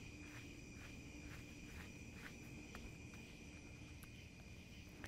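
Faint crickets: a steady high trill with a sharper chirp about twice a second.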